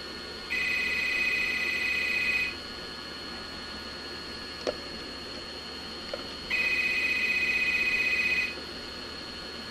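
Corded desk telephone's electronic ringer trilling twice, each ring about two seconds long and four seconds apart. A sharp click sounds between the rings.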